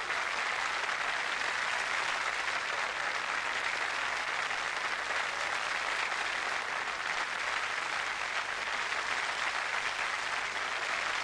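Studio audience applauding, a dense and steady clapping.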